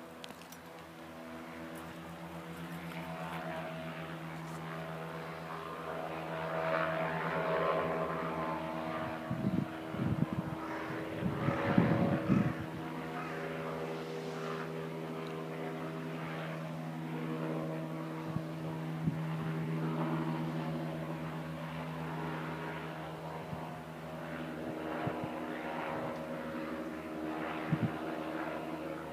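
Airship's propeller engines droning overhead: a steady, even-pitched hum that grows louder over the first several seconds and then holds, with a few brief bumps near the middle.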